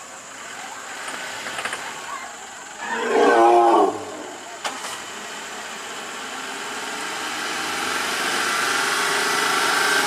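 An Asian elephant trumpets once, a loud call of about a second that wavers and bends in pitch. Afterwards a vehicle engine runs and slowly grows louder.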